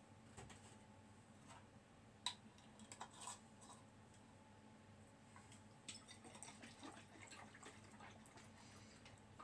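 Faint knocks and clicks, the sharpest about two seconds in, as a plastic milk jug is set down and a metal lid is screwed onto a glass mason jar. From about six seconds in comes a quick run of small rattles and clicks as the jar of cold brew coffee, milk and syrup is shaken to mix.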